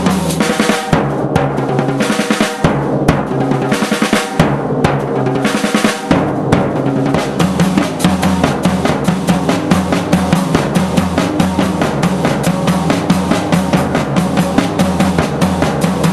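Drum kits and percussion playing a fast, dense rhythm with snare rolls and bass drum over sustained pitched tones; the first few seconds are broken up by fills, then a steady rapid pulse takes over.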